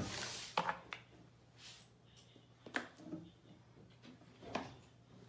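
A baby rummaging in a low cabinet shelf, handling and pulling out objects: a brief rustle, then a few scattered light knocks and clicks.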